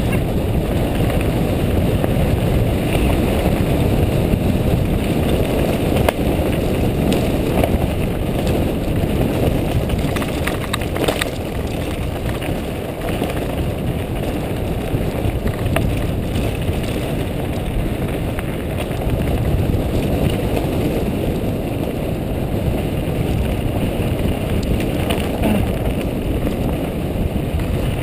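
Steady wind buffeting on a helmet camera's microphone as a mountain bike runs fast downhill over a rocky dirt trail, mixed with the rumble of the bike over the ground and a few sharp knocks.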